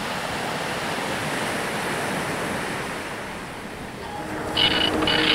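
Sea surf: small waves breaking and washing up a sandy beach, a steady rush. Near the end, steady musical tones come in, with two short high notes.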